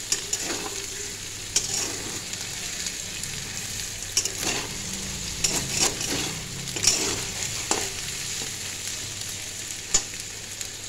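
Potatoes, long beans and egg sizzling in a steel wok while a metal spatula stirs them, scraping and knocking against the pan at irregular intervals over a steady frying hiss.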